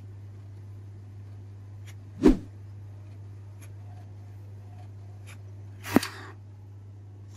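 HP Ink Tank 315 inkjet printer printing a test page: a steady low hum with two sharp clunks about four seconds apart and a few faint clicks between them.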